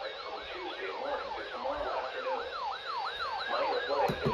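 Weather alert radio sounding a siren-style alarm, a tone warbling up and down about three times a second, with a faint voice under it and a click near the end.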